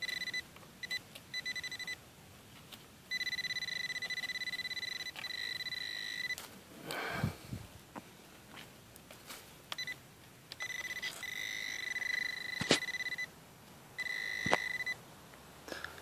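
Handheld metal-detecting pinpointer probe sounding its high, fast-pulsing alert tone as it is pushed around in the dug soil: a few short beeps at first, then longer stretches of a few seconds each, signalling metal close to its tip. Soft scrapes and clicks of the probe and fingers in the dirt come between the tones.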